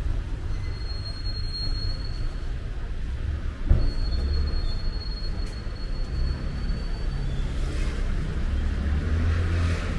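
Low rumble of street traffic with a thin high-pitched squeal heard twice, the second one longer, and a single knock a little before halfway.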